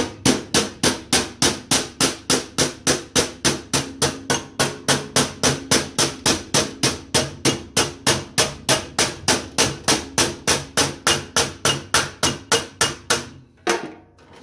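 Hammer blows struck in a fast, even rhythm, about three or four a second, on a flat aluminium block held against a folded sheet-metal kick panel, dressing a corner of the fold; each blow rings briefly. The hammering stops about 13 seconds in, with one last blow soon after.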